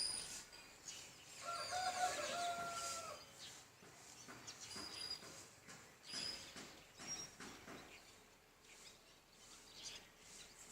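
Birds singing and calling: short high whistled notes and quick chirps, with a longer held call about one and a half seconds in that steps in pitch and lasts nearly two seconds.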